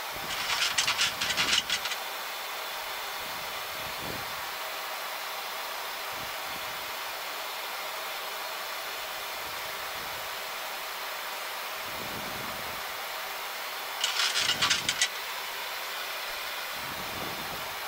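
Steady rushing air noise on a Boeing 737 flight deck during the descent. Two short bursts of rapid crackling come through, one right at the start and one about 14 seconds in.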